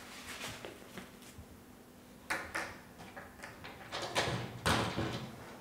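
Glass-fronted wooden display cabinet being handled: light knocks and scrapes as a clay pot on a cushion is lifted out, then a couple of sharper knocks near the end as the cabinet door is pushed shut.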